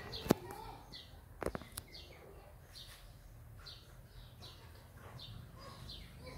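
A bird chirping over and over, short high falling chirps about every half second. A sharp click sounds about a third of a second in and another about a second and a half in.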